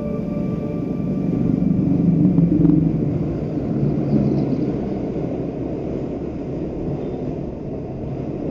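Motorcycle on the move heard from the rider's camera: the engine running under a heavy rumble of wind and road noise, getting louder around two to three seconds in.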